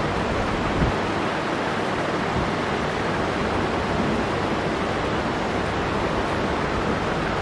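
A steady, even hiss of background noise, with one faint knock about a second in.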